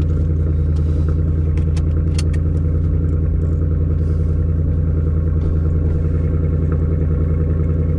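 Ford Mustang GT's 5.0 V8 idling steadily, heard from inside the cabin. A few light clicks and rattles about two seconds in as a seatbelt is pulled and buckled.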